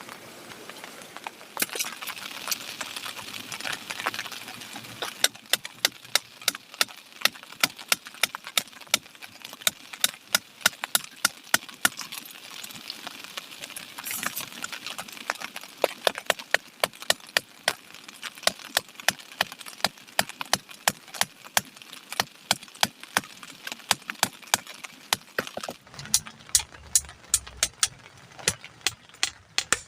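A steady series of sharp knocks or taps, about two to three a second, over a background hiss of heavy rain that thins out near the end.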